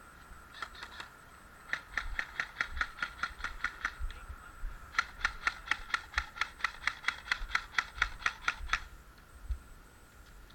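Airsoft gun firing rapid strings of shots, about six or seven clicks a second: a brief burst, then a string of about two seconds, then a longer string of almost four seconds that stops suddenly.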